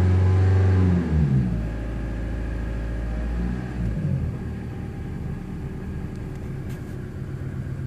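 A high-mileage VW 1.9 TDI (ALH) four-cylinder turbo-diesel at operating temperature being revved. It is held near 3,000 rpm for about a second, then drops, is blipped briefly again around three and a half seconds in, and settles to a steady idle.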